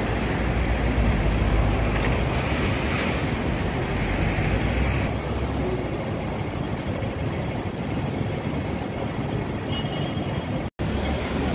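Steady traffic noise on a busy city street, with vehicles passing and a strong low rumble. It cuts out for a moment near the end.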